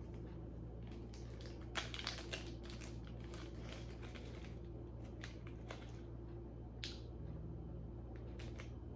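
Scattered light clicks and crinkles of jewelry pieces and their packaging being handled, over a steady low hum.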